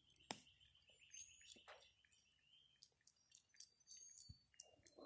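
Near silence: faint scattered clicks and ticks of a Java macaque grooming, with a few faint high chirps.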